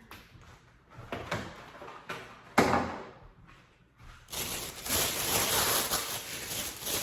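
Shopping items being handled. A sharp knock about two and a half seconds in as something is set down on a hard surface, then steady rustling and crinkling of a shopping bag from about four seconds in as the next items are pulled out.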